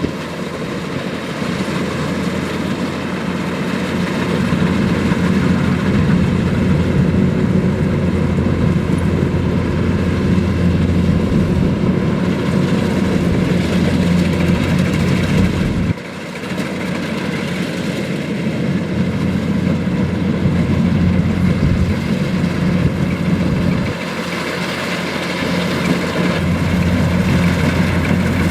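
Kubota DC-105X rice combine harvester's diesel engine running steadily. The sound drops suddenly twice, about halfway through and again past three-quarters, then builds back up.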